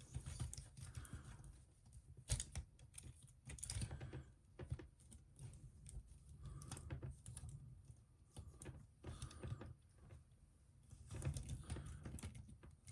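Irregular light plastic clicks and taps from an action figure and its accessories being handled and posed.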